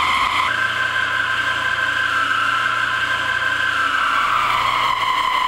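Large indexable helical (corn-cob) end mill full-slotting a part on a horizontal CNC machining center. It makes a loud, steady cutting whine that steps up in pitch about half a second in and slides back down near the end.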